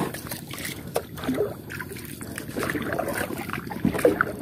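A wooden paddle stroking through calm water beside a small wooden boat, the water swishing with each pull.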